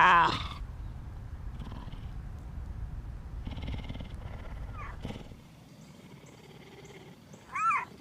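Cougar purring, a steady low rumble that stops about five seconds in. A loud meow comes right at the start, and a short high call near the end.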